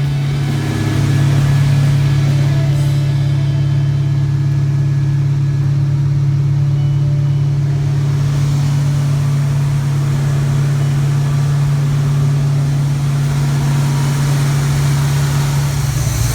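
Freshly rebuilt Pontiac 455 V8 running steadily at a fast idle, held at about 2,000 RPM for cam and lifter break-in.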